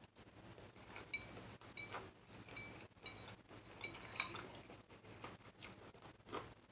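A metal fork clinking faintly against a ceramic bowl several times, each tap with a short ringing tone, while noodles are scooped up and eaten.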